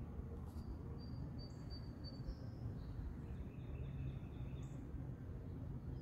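Faint birdsong: a few thin, high whistled notes over a steady low rumble.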